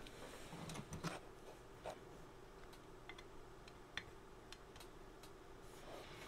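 Faint, scattered small clicks and ticks of a screwdriver and fingers handling a wire connector in a radio's metal chassis.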